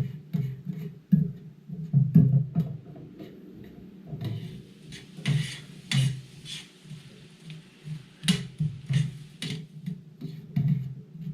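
Onions frying in bacon fat in a pan, with a faint sizzle and repeated clicks and scrapes from stirring.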